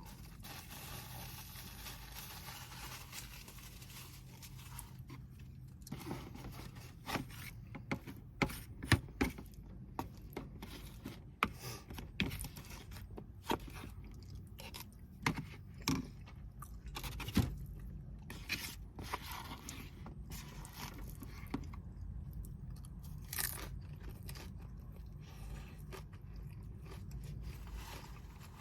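Close-up eating sounds: scraping and rustling in a takeout container, then from about six seconds in, chewing and crunching with many sharp clicks and snaps.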